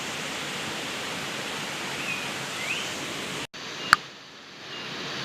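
Steady rush of flowing stream water, with two short chirps about two and a half seconds in. The sound cuts out completely for an instant about three and a half seconds in, then a click, and the rush comes back quieter.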